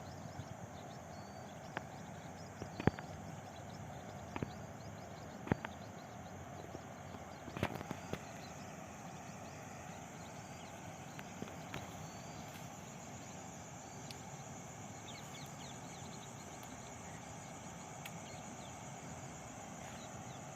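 Steady outdoor background noise with a few sharp clicks in the first eight seconds and faint, short high chirps from birds.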